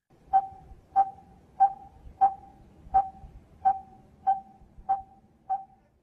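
Coppersmith barbet's breeding call: a single short note repeated at one pitch about one and a half times a second, nine times over, growing fainter over the last few notes.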